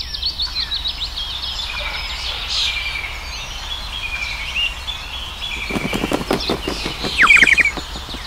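Small songbirds chirping and twittering in a steady chorus over a low hum, with a quick run of short pulses about six seconds in and a few fast falling whistles near the end.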